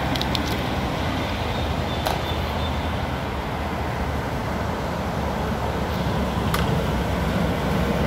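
Water rushing strongly in a stream or channel, a steady noise that grows louder near the end, the flow swollen by recent rain. A few faint clicks sound over it.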